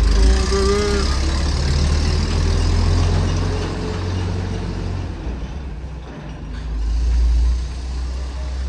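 Flatbed tow truck's engine running as the truck pulls away, a low steady drone that swells about seven seconds in.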